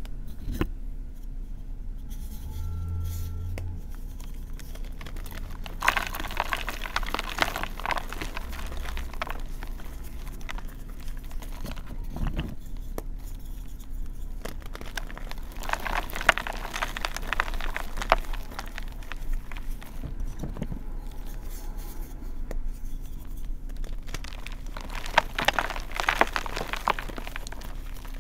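Fingers crushing and crumbling pieces of reformed gym chalk: soft, powdery crunching and crackling that swells three times, about six, sixteen and twenty-five seconds in.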